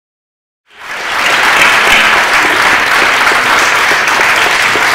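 Audience applauding in a theatre: the clapping fades in from silence just under a second in, then goes on steadily.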